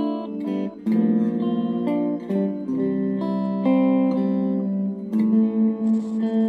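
Epiphone VE Les Paul Special electric guitar being played: chords struck and left to ring. A new chord comes in about a second in, and the chords change a few more times.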